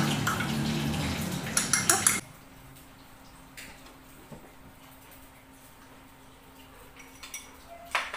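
A metal spoon stirring a liquid in a drinking glass, clinking against the glass in a quick run of taps about a second and a half in. After that it is quieter, with a faint steady hum and a few light clinks near the end as the glass and utensils are set down.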